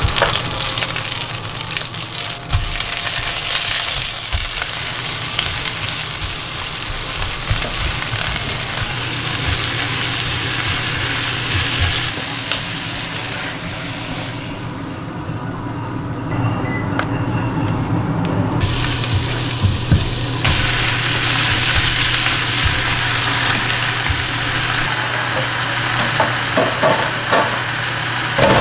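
Shredded cabbage sizzling as it is stir-fried in goose fat, with a plastic spatula stirring and scraping through it in the pan. A steady low hum runs underneath, and there are a few short knocks near the end.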